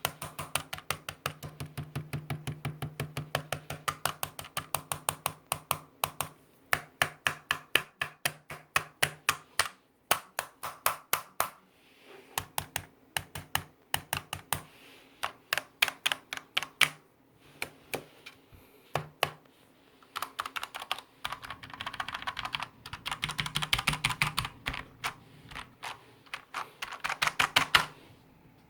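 Typing on a Typone Mars Pro mechanical keyboard with Cherry MX Black switches: quick runs of keystrokes at several a second, broken by brief pauses, with a few loud strokes near the end.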